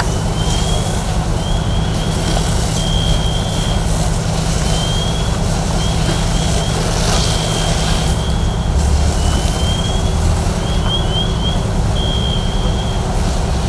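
Fire truck's diesel engine running steadily at the fireground, a loud low drone, with irregular high chirps over it, some held briefly and some rising or in quick runs.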